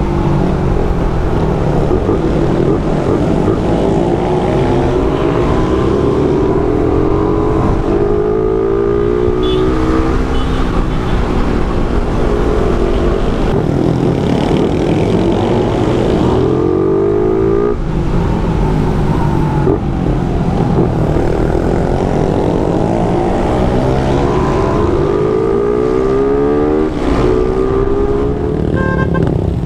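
Suzuki Raider R150 Fi motorcycle engine under way, its pitch climbing and dropping back several times as it accelerates and shifts through the gears, over a steady rush of wind and road noise.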